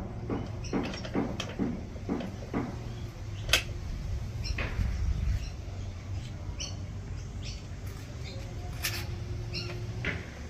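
Hand screwdriver driving in the screws that hold the fuel tank onto a 2.5 hp Mariner two-stroke outboard. For the first few seconds it makes a run of short, regular scraping strokes, then scattered clicks and a few short high squeaks.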